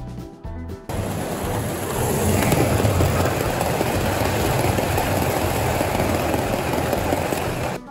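Toy train rattling and clattering past close by on three-rail tubular track, loud and continuous. It cuts in about a second in as background music stops, and ends just before the music returns.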